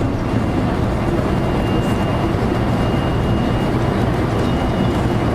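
JR local electric train running along the line, heard from inside the car: a steady rumble with a faint, high, steady whine above it.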